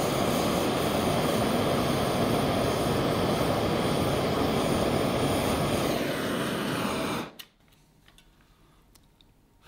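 Butane kitchen blowtorch burning with a steady hiss as its flame lights a tin of wood chips for smoking. Its tone sinks slightly just before the torch is shut off suddenly about seven seconds in.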